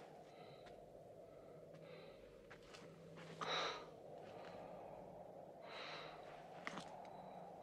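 A man breathing heavily and sighing, faint, in a few separate breaths; the loudest exhale comes about three and a half seconds in, with a weaker one near the end. Under the breaths runs a steady low hiss.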